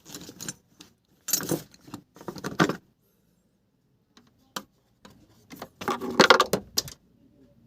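Metallic jingling and rattling of hand-handled parts and tools in several short bursts, with a single sharp click about four and a half seconds in and the longest, loudest rattle near the end.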